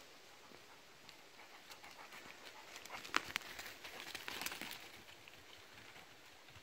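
Labrador retriever running past through dry leaf litter: paws rustling and crunching leaves with panting, loudest from about three to five seconds in as it passes close, with a couple of sharp snaps near the start of that stretch.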